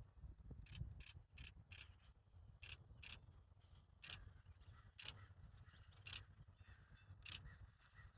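Near silence, broken by about ten faint, sharp, high clicks at uneven intervals, over a low rumble.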